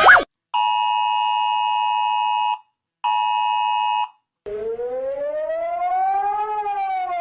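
Emergency-alert alarm tones: a steady two-note attention tone sounds twice, first for about two seconds and then for about one, and after a short gap a siren tone rises slowly in pitch and starts to fall again near the end.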